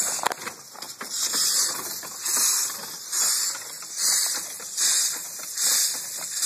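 Home-built live-steam locomotive's steam cylinder, made from a hydraulic cylinder, exhausting in rhythmic hissing chuffs, a little more than one a second, as the engine runs unloaded up on blocks.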